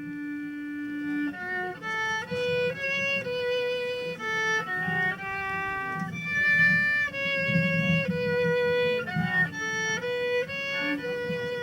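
Slow instrumental music: a melody of long held notes, each sustained for about half a second to a second, over a low accompaniment.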